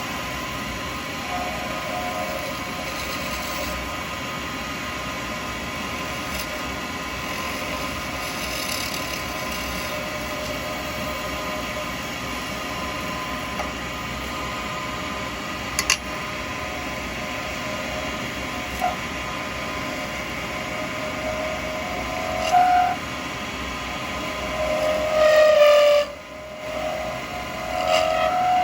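Lathe running steadily while a 12mm round carbide cutter cuts an acrylic pen blank, with scattered short scrapes. Near the end the cutting gets louder and takes on a higher-pitched squealing noise as the blank thins between centres.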